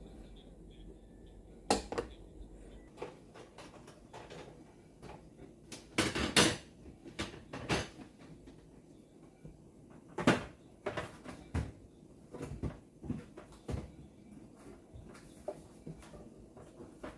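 Containers and dishes being set down and moved around on refrigerator shelves: scattered knocks and clatters, with the loudest a little before two seconds in, a quick cluster around six seconds, and another sharp one around ten seconds.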